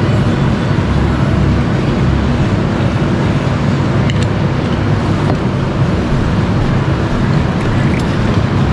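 Steady low rumble of a road vehicle driving, engine and road noise, with a couple of faint clicks.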